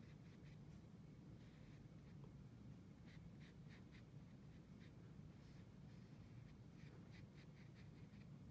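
Faint, soft strokes of a small paintbrush dabbing paint onto paper, in two quick runs of short brushing sounds, a few seconds in and again near the end, over quiet room tone.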